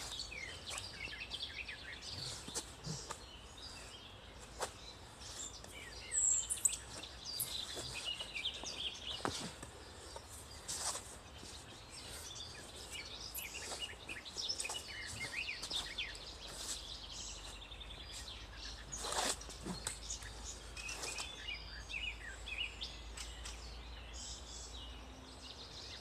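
Small birds singing in leafy woodland, many short chirps and song phrases overlapping throughout, with a few brief sharp sounds standing out, the loudest about six and nineteen seconds in.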